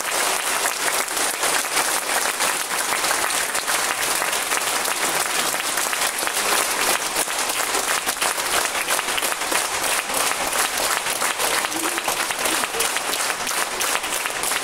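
Audience applauding, a dense, steady clapping that keeps an even level throughout.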